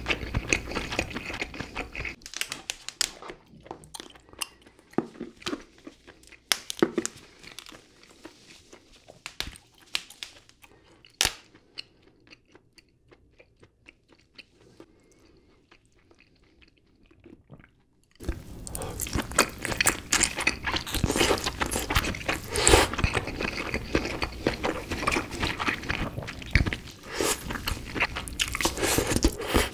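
Close-miked eating of red king crab: chewing and biting the crab meat, then scattered sharp clicks as the shelled legs are handled, dropping to near quiet for several seconds. About eighteen seconds in, dense, loud chewing resumes.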